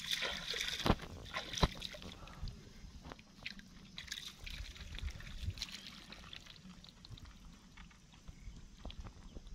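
An arm groping in a flooded mud hole: wet squelching and sloshing of muddy water, with sharp wet smacks about one and one and a half seconds in, then softer and more scattered.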